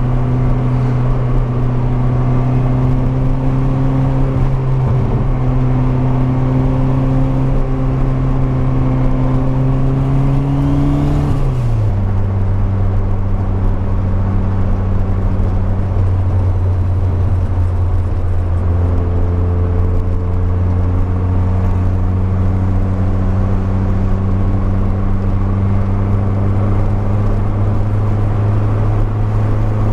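Car engine running steadily under way, its pitch creeping slowly upward, then dropping sharply about eleven seconds in as the revs fall. It then holds steady and starts climbing again near the end.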